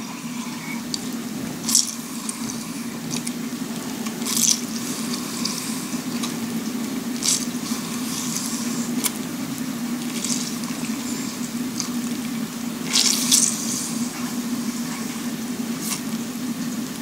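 Grapefruit juice dripping and splashing into a glass jug of water as half a grapefruit is squeezed by hand, in several short splashes over a steady low hum.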